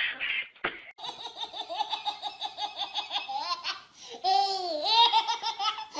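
A baby laughing hard: a run of quick, high-pitched giggles, then longer belly laughs whose pitch rises and falls.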